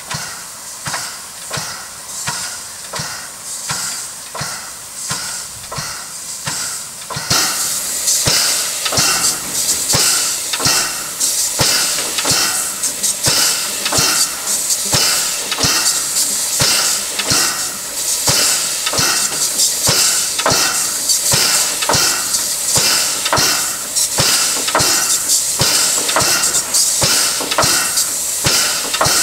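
Standing DR class 65.10 steam tank locomotive with its steam-driven air pump working: an even run of sharp beats at roughly two to three a second over a steady hiss of steam. The hiss and beats get louder about seven seconds in.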